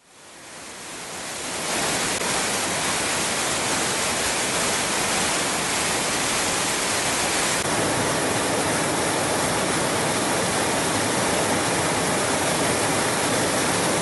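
A river waterfall: water pouring and splashing over large rocks in a steady, loud rush that fades in over the first two seconds.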